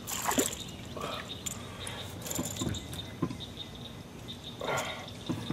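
A hooked largemouth bass being landed and handled in a canoe: scattered short splashes, knocks and rattles, the first ones just at the start.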